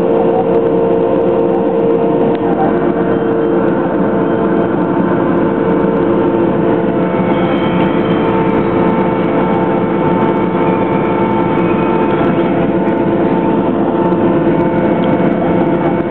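Boeing Jetfoil's gas-turbine waterjet propulsion running steadily as heard aboard: a loud, even drone with several held tones over a dense rush of noise.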